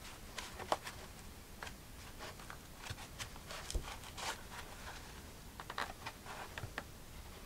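Handling noise from unpacking: scattered light clicks and rustles as cables and small plastic parts of a microphone kit are moved about in a foam-lined cardboard box.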